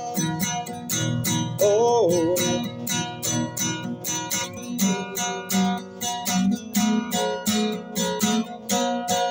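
Acoustic guitar strummed steadily, about four strokes a second, in an instrumental passage of a song. A short wavering held note stands out about two seconds in.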